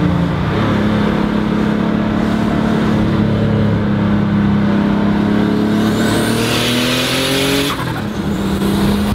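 In-cabin sound of a turbocharged Porsche 911's air-cooled flat-six pulling under load, its engine note climbing slowly. A high turbo whistle rises from about six seconds in, and both cut off sharply near the eight-second mark as the throttle closes. The engine then picks up again at a lower pitch with a new whistle starting.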